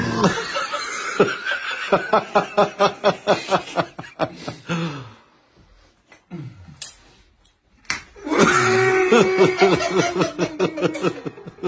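Men laughing hard in rapid ha-ha-ha pulses, about four or five a second, for several seconds; after a short lull a second bout of loud laughter starts up.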